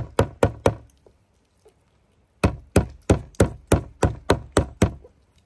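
Metal meat mallet pounding slices of wild hog meat on a plastic cutting board, flattening them paper thin for schnitzel. A few quick blows about three a second, a pause of about a second and a half, then a run of about nine more blows at the same pace.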